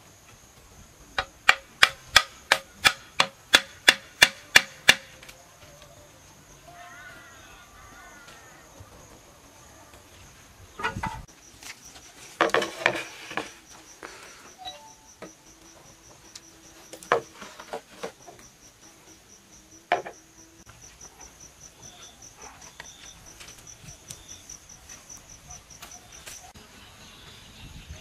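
Wooden stakes being hammered into packed earth: about a dozen sharp knocks, roughly three a second, then a few scattered knocks. A steady high insect buzz runs underneath and turns pulsing in the second half.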